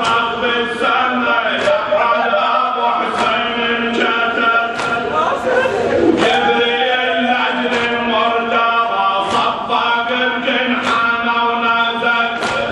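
Men chanting a raddadiya, a Shia mourning lament in Arabic, with voices joining together on a slow, drawn-out melodic refrain.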